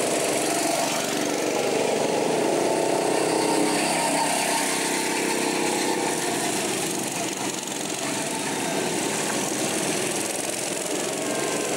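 Small go-kart engines running steadily as karts drive round the track. One kart passes close at the start, and then others lap further off.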